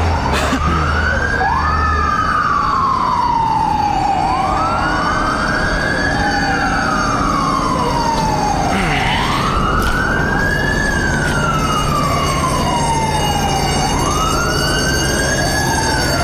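Fire engine siren wailing, each cycle rising quickly and then falling slowly, repeating about every five seconds.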